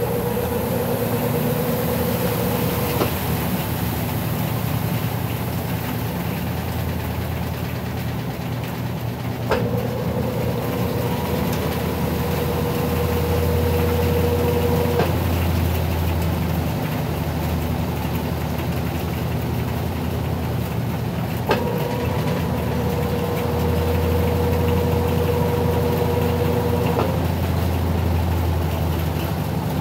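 Brastemp BWT12 12 kg top-load washing machine spinning its drum with a steady low hum. Twice a click is followed by a whine that holds for about five seconds, then drops out.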